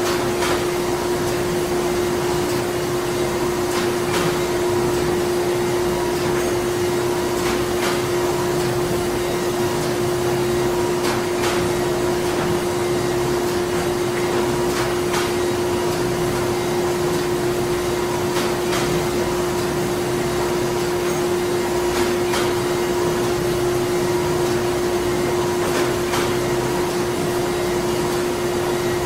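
Printing plant machinery running steadily: a constant machine hum and noise, with a faint click or knock every three to four seconds.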